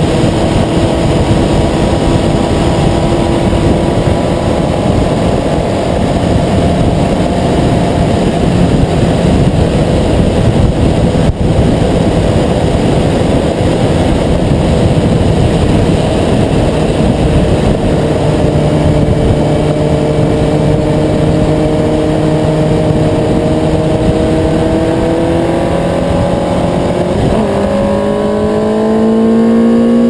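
Motorcycle running at high speed, with heavy wind rush over the microphone and a steady engine whine that creeps up in pitch. Near the end the engine shifts up a gear: the pitch drops, then climbs again as it accelerates.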